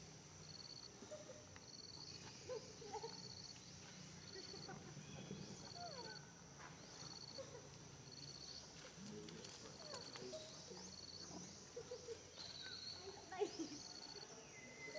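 Faint forest ambience: an insect chirping in short, evenly spaced pulses a little more often than once a second over a steady high insect drone. Scattered short animal chirps and calls come and go, with a sharp click about thirteen seconds in.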